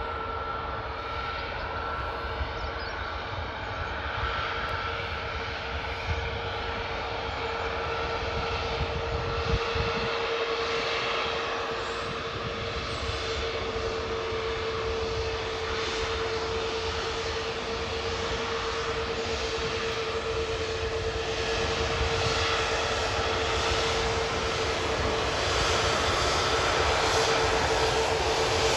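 Ryanair Boeing 737 MAX 8-200's CFM LEAP-1B jet engines at taxi power: a steady whine over a continuous jet rush, growing slowly louder as the aircraft comes closer.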